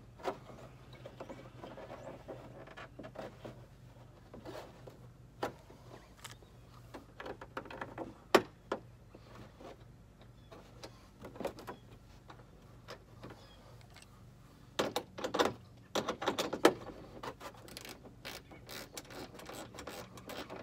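Light scattered clicks and taps of screws being started into the pal nuts of a plastic fender flare on a pickup's wheel arch, with a quick run of rapid clicks near the end.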